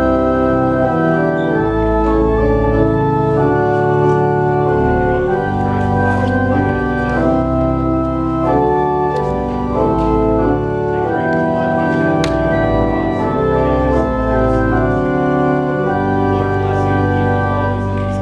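Church organ playing slow, sustained chords over a deep held bass, the notes moving every half second to a second.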